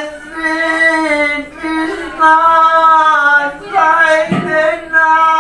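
A single voice chanting a devotional Krishna-name kirtan in long drawn-out notes of a second or so each, with short breaks between them and small slides in pitch.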